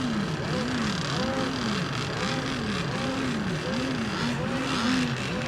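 Radio-controlled racing boat engines running, their pitch swinging up and down over and over, about twice a second, with several engines overlapping.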